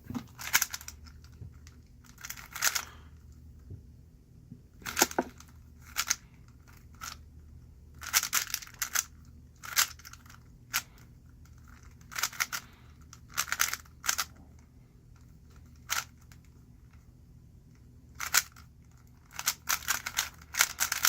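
3x3 speed cube being turned fast: its plastic layers click and rasp in quick irregular bursts, with short pauses between them.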